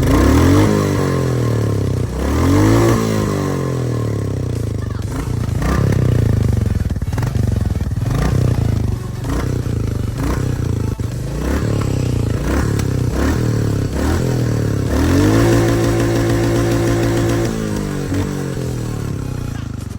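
Stock Royal Enfield Classic 350 single-cylinder engine revved in neutral through its stock exhaust: several rises and falls in revs, a run of quick throttle blips in the middle, then a held high rev for a couple of seconds near the end before it drops back to idle.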